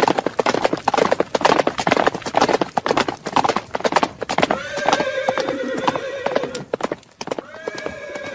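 Many horses' hooves clip-clopping on the street in an uneven stream of hoofbeats. About halfway through, two long held calls of about two seconds each sound over the hooves, the first starting with a short upward slide.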